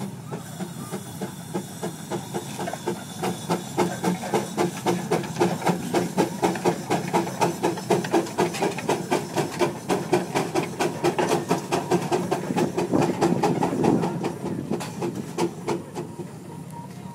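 Steam traction engine pulling hard up a steep incline ramp, its exhaust chuffing in a fast, even beat over a hiss of steam. The beats grow louder a few seconds in and ease off near the end as it tops the ramp.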